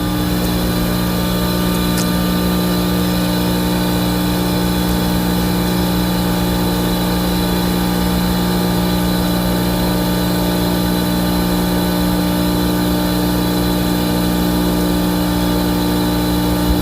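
A machine running steadily with a constant hum made of several steady tones, like an engine or motor idling.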